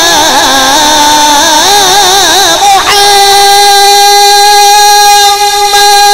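A man singing a devotional manqabat through a PA system, winding an ornamented line up and down. About three seconds in he settles onto one long held note.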